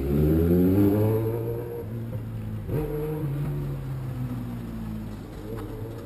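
Kawasaki Z1000 inline-four running on a straight pipe with its exhaust baffle removed, pulling away at low revs: the note rises over the first two seconds, shifts sharply near three seconds in like a gear change, then runs steadily at lower revs.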